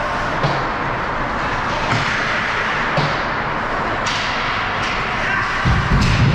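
Ice hockey play on the rink: a steady wash of arena noise with sharp clacks of sticks and puck every second or so, and a heavier low thud near the end.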